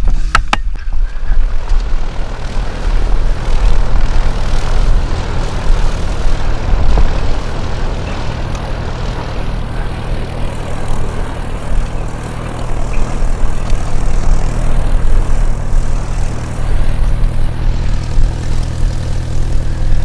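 Wind buffeting the microphone while riding a Specialized Turbo Levo e-bike along a trail, a loud continuous rumble with a low steady hum underneath.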